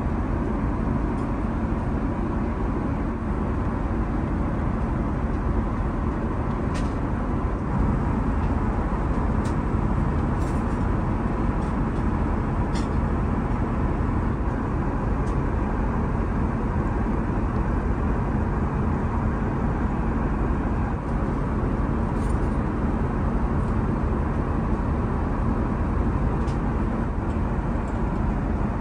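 Steady cabin noise of an Airbus A380 in cruise flight: an even, low rush of airflow and engines with a faint hum, broken only by a few faint light clicks.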